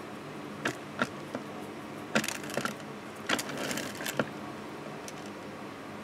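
Hard painting board being turned and slid over a woven mat: a few light clicks, then two short spells of scraping and rustling, over a steady low hum.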